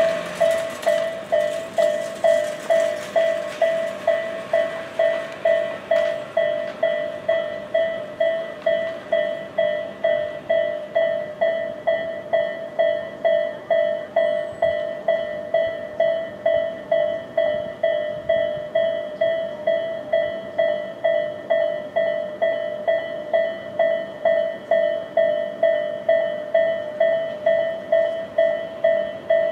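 Japanese railroad crossing alarm ringing its electronic bell tone, evenly repeated a little under two strikes a second. A rush of passing-train noise fades away over the first several seconds.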